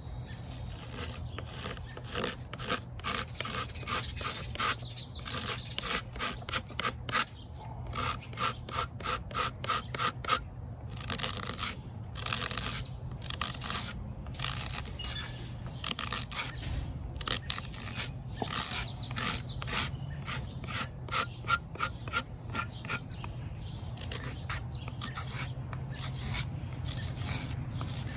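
Carving knife shaving green cherry wood, in runs of short scraping cuts, several strokes a second, with brief pauses between runs.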